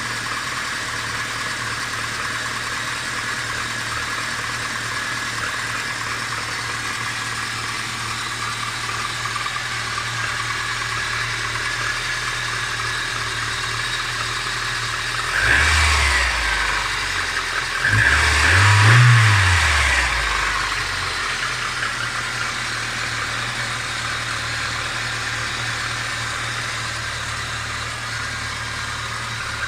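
Car engine idling with a knock that the owner cannot place, piston or something else. It is revved briefly twice, a short blip about 15 seconds in and a higher, longer rev about 18 seconds in, each falling back to idle.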